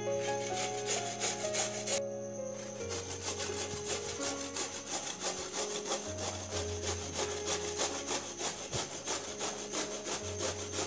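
Peeled bottle gourd being grated on a stainless-steel hand grater: rapid, rhythmic rasping strokes, about four or five a second.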